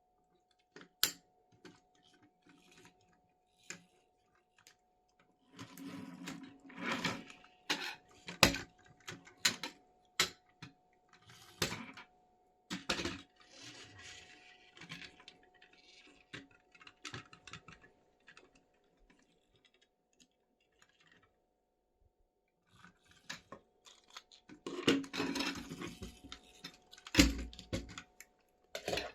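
Plastic toy construction vehicles and their packaging being handled: scattered sharp clicks and knocks of plastic parts with bursts of crinkling. The handling is busiest about six seconds in and again near the end.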